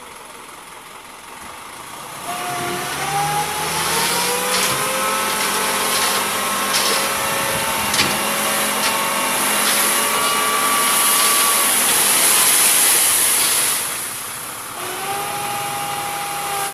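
Dump truck engine revved up to work the hydraulic hoist as the tipper bed lifts and sand slides out, with a whining tone that climbs slightly and a few knocks. It revs up about two seconds in and eases off briefly near the end.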